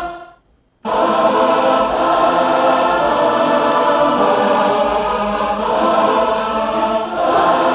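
Sampled choir playing sustained, slowly shifting chords, coming in about a second in after a brief silence, with a short break and a new chord a little before the end.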